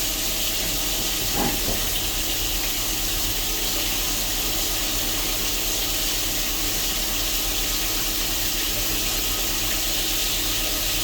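CNC machine machining an aluminum alloy part under coolant: a steady hiss and splash of coolant flow over a low machine hum.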